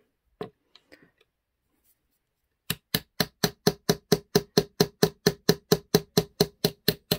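Small claw hammer tapping the back of a craft-knife blade in quick, even strokes, about four to five a second, starting about three seconds in, each tap a sharp knock with a short ring. The dulling blade is being driven through a small wooden bed post to cut it off.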